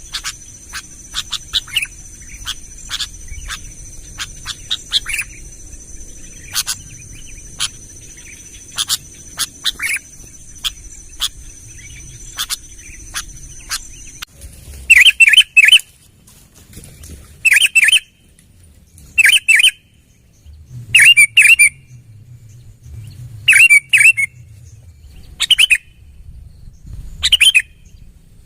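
Birds chirping: many short, quick chirps over a steady high-pitched hiss, then about fourteen seconds in a change to a bird's loud calls, repeated about every one and a half to two seconds.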